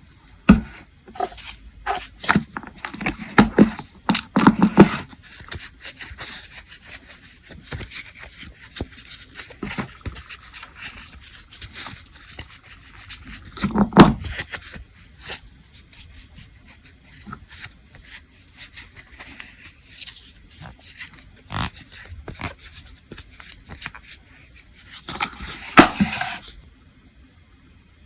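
Close-up handling noises of nail-care work: irregular small taps, clicks and short rubbing and scraping strokes, with heavier bursts near the start, about halfway through and near the end, stopping shortly before the end.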